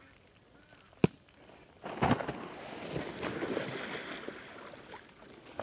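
A single sharp knock, then about two seconds in a loud splash and sloshing of water that dies away over about three seconds.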